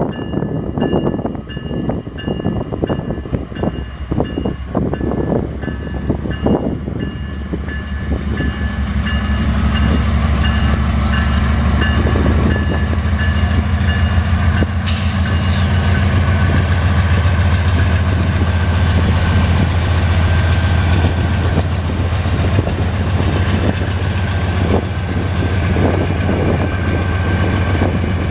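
GE Dash-9 diesel-electric locomotives pulling a loaded iron ore train away from a station. Their engines make a steady low drone that grows louder about a third of the way in as the units pass. Short knocks from the wheels come in the first several seconds, and a brief hiss about halfway through.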